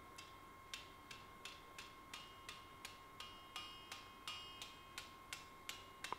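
Light, evenly spaced hand-hammer taps on a red-hot steel scythe blade held over an anvil, about three a second, each with a faint high metallic ring. The taps upset the warped edge of the blade back into itself while it is at heat, barely touching the anvil.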